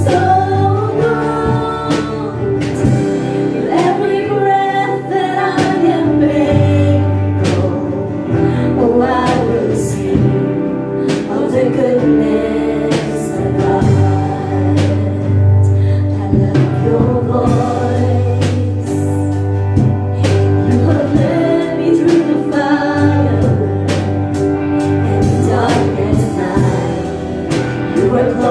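Worship song sung by a group of voices with band accompaniment: held bass notes under the singing and a beat of drum strikes.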